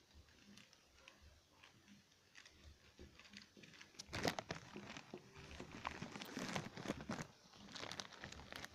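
Plastic courier pouch rustling and crinkling as it is handled, faint at first and much louder and busier from about four seconds in.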